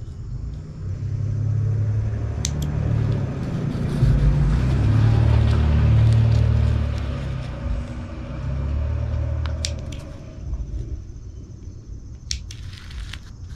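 A deep rumble swells and fades over about ten seconds and is the loudest sound. Small bonsai trimming snips click shut on pine needles a few times.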